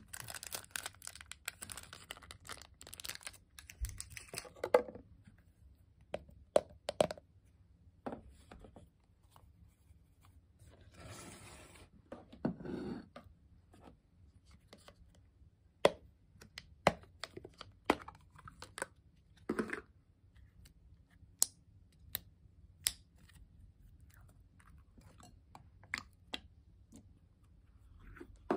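Hands handling plastic slime containers: a lid being pried off with crinkling and scraping plastic, then scattered light clicks and taps, with a short rustling stretch about halfway.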